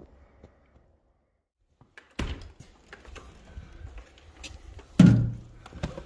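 About two seconds of silence, then outdoor handling noise: wind rumble on the microphone and scattered knocks and clicks as a handheld camera is carried through snow. One loud thump comes about five seconds in.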